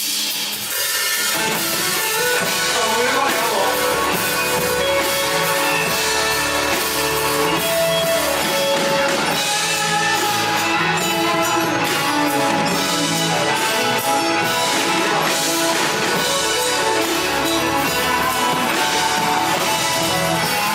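Live band playing the instrumental intro of a pop-rock song, with drum kit and guitar; the full band comes in about a second in.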